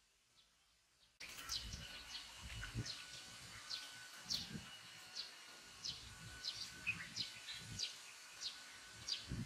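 Outdoor pond ambience that starts abruptly about a second in: a bird chirping repeatedly in short high notes, over a faint steady insect hum, with occasional low sloshes of water from someone wading waist-deep.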